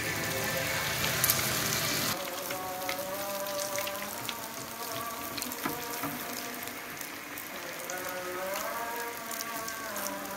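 Battered tempeh pieces sizzling and crackling in hot oil in a wok: a fuller hiss for about the first two seconds as a freshly battered piece goes in, then a steady crackle. Background music plays over it.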